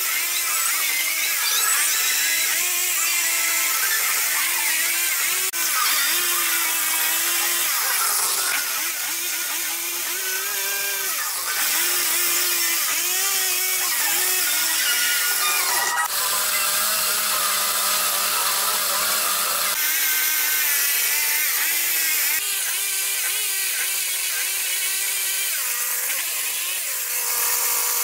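Chainsaw cutting into a wooden log, its engine pitch rising and falling as the throttle is worked under load. The sound jumps abruptly several times.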